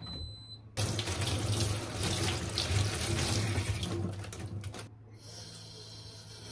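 A short electronic beep as the rice cooker is started, then a kitchen tap running into a stainless steel sink, splashing over hands and a mesh strainer for about four seconds. About five seconds in the splashing gives way to a quieter, steadier stream filling the stove's fish-grill tray with water.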